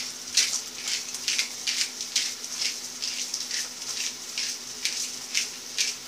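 Pepper mill being twisted to crack black pepper, a gritty grinding rasp repeating about twice a second, with a faint steady hum underneath.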